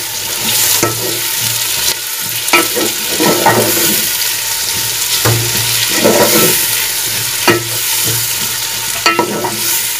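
Chopped onions sizzling in hot oil as they start to brown, stirred with a wooden spoon that scrapes and knocks against the metal pot now and then.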